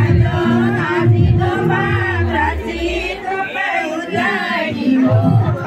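Singing with music, over the background noise of a gathered crowd.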